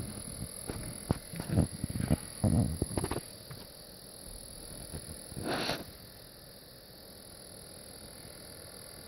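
TriCaster Mini video production switcher running, with irregular loud ticks and knocks over its steady fan noise for the first few seconds, like something caught in the fan. A louder rushing sound comes just past the middle, then only the steady running noise remains. The ticking is the sign of a defect in the five-month-old unit.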